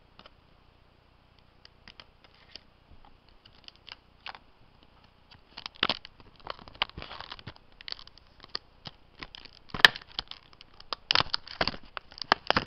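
Plastic packaging of a laptop RAM module being opened by hand: scattered crackles at first, then denser crinkling and crackling from about halfway, with one sharp click near the end.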